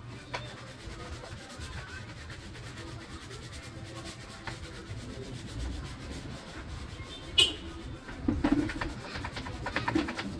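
Hands scrubbing a wet motorcycle wheel, a soft rubbing, with one sharp knock about seven seconds in. Pigeons coo near the end.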